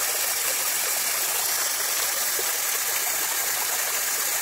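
Steady stream of water pouring from a miniature model pump's outlet pipe and splashing into a small tank.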